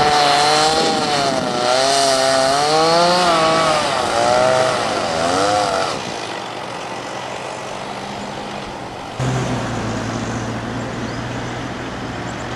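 Two-stroke chainsaw cutting through a fallen tree trunk, its engine pitch rising and falling as the chain bites into the wood. About nine seconds in, a steady low engine hum takes over.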